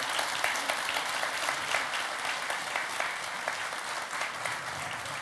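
Audience applauding: many people clapping together, steady, easing a little near the end.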